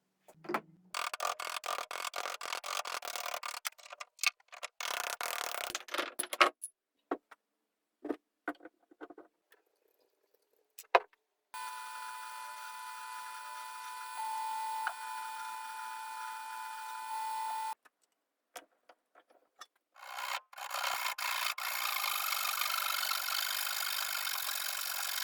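Hand tools working an oak hammer handle: rapid scraping strokes in two bursts, then scattered knocks and clicks. A power tool runs with a steady whine for about six seconds in the middle, and a long stretch of continuous abrasive scraping follows near the end.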